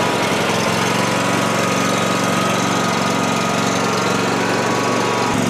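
John Deere X310 lawn tractor's engine running steadily, just started with its failed starter solenoid bypassed by a screwdriver bridging the battery and starter posts.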